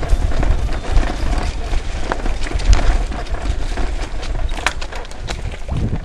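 Wind buffeting the microphone of a handheld camera carried on foot: a loud, steady low rumble with scattered knocks and clicks from handling and footsteps.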